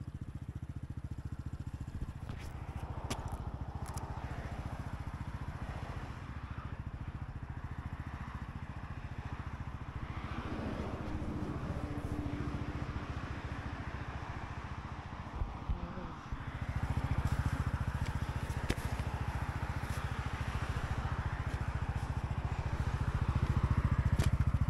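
Honda Super Cub's small single-cylinder four-stroke engine running steadily with an even low putter, getting louder about two thirds of the way in, with a few sharp clicks.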